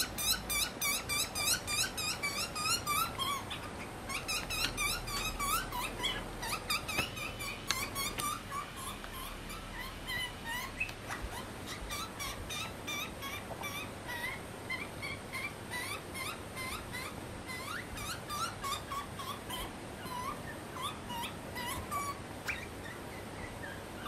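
Juvenile grey butcherbird begging from an adult: a rapid series of short rising calls, about two or three a second, louder for the first several seconds and then continuing more softly.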